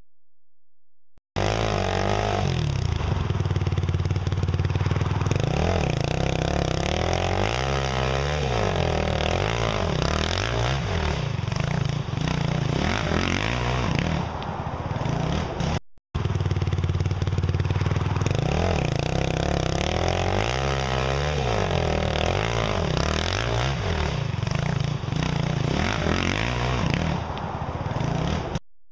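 A 450cc four-stroke off-road engine revving up and down over and over while climbing a steep dirt hill. It starts about a second in and cuts out for a moment about halfway through before carrying on.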